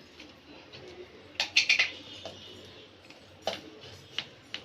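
Kitchen utensils clinking against a bowl or cup while curd is spooned into a marinade: a quick run of sharp clinks about a second and a half in, then three single taps near the end.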